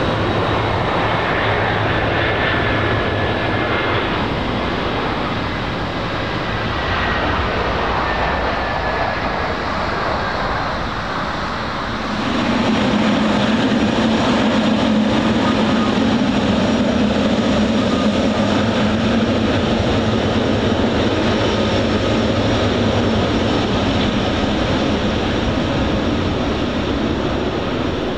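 Boeing 747-400 freighter's four jet engines at taxi power: a steady jet rumble and hiss with a faint high whine. About twelve seconds in the sound abruptly becomes louder, with a stronger low rumble.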